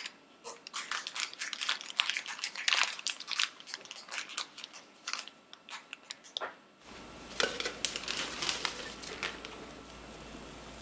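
Disposable plastic piping bag crinkling and crackling as it is handled, with a sharp scissors snip right at the start. About seven seconds in the background changes to a low steady hum, with a second spell of crinkling and rustling.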